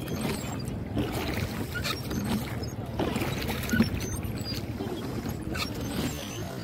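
Lake water lapping and splashing against a hand-rowed boat as a boatman rows it across the lake, with short splashes every second or so.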